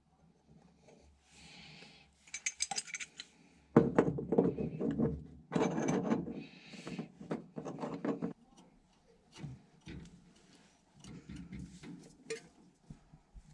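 Metal hand tools and brass and copper pipe fittings clinking and clattering, with a dense run of louder knocks and rattles in the middle, as the new pump valves and olives are handled and fitted.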